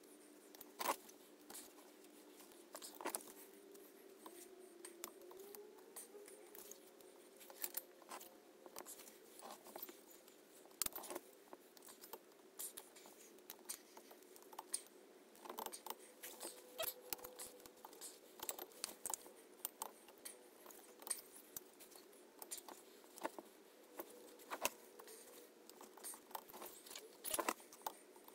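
Faint, scattered light clicks, taps and scrapes as the BSA Fury's twin-cylinder barrel is rocked and worked by hand down over the pistons onto the crankcase.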